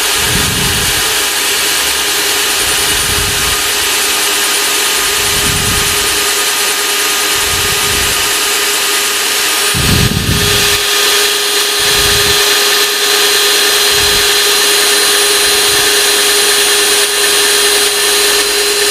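Cordless drill running steadily at speed, its small diamond-coated ceramic core bit grinding dry into marble tile. The whine lifts slightly in pitch and gets a little louder about ten seconds in.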